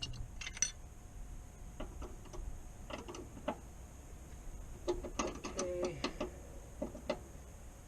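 Irregular metallic clicks and ticks of a wrench being worked on a brake line fitting as it is tightened.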